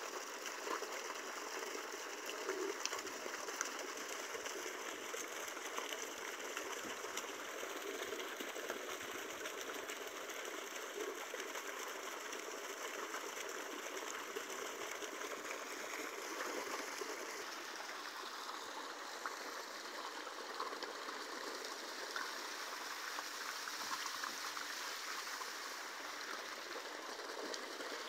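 Water rushing and splashing steadily in a concrete water tank, an even, unbroken noise.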